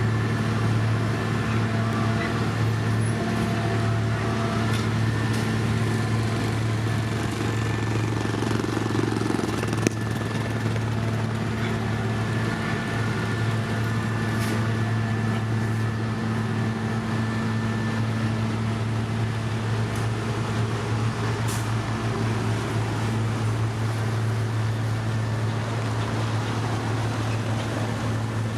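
Diesel engine of heavy road-construction machinery running steadily: a deep, even drone with a thin steady tone above it. There is one sharp click about ten seconds in.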